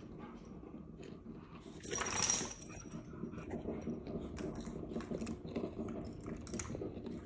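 Light metallic jingling and clicking from a boxer dog's collar as the dog moves about, with one louder burst of jingling about two seconds in.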